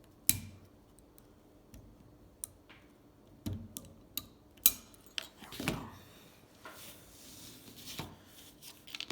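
Small metal parts of a hand ratchet and tools clicking and clinking, a string of separate sharp clicks, as the ratchet is taken apart, with a softer rustle near the end.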